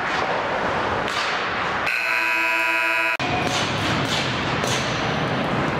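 Ice-rink horn or buzzer sounding once for about a second and a quarter, starting and cutting off abruptly, over arena background noise.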